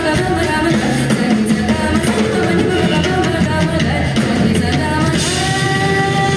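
Live Indian fusion band: a woman singing over a drum kit and Indian barrel drum keeping a busy rhythm. About five seconds in, a long held note starts over the drums.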